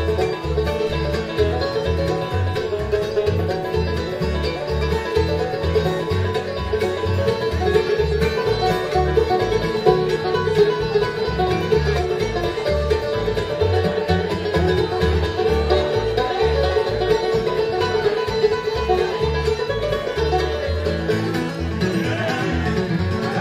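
Bluegrass music with picked string instruments over a steady bass beat.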